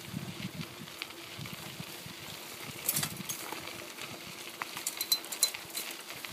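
Bicycle rolling along a gravel trail, its tyres crunching over the stones, with an uneven low rumble underneath. Sharp clicks and rattles from the bike stand out about three seconds in and again around five seconds in.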